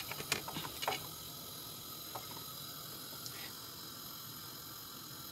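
Panch phoron seeds frying in hot oil in a wok: a steady faint sizzle, with a few sharp crackles in the first second.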